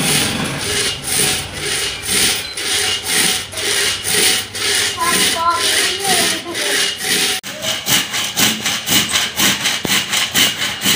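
Hand saw cutting across a log, a steady back-and-forth rasp of strokes. The strokes come about twice a second at first and quicken to three or four a second after about seven seconds in.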